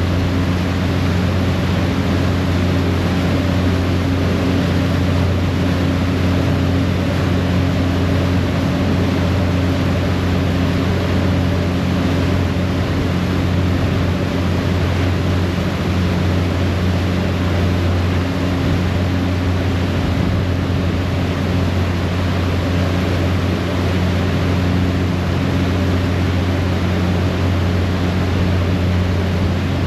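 Passenger ferry's diesel engines running steadily at cruising speed, a deep even hum under the constant rush of the propeller wash churning behind the stern.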